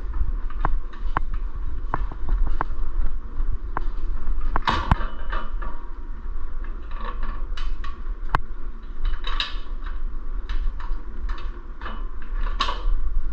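Metal hardware clicking and clinking as washers and a nut are worked onto an engine mounting bolt by hand: many short, irregular clicks and small metallic knocks.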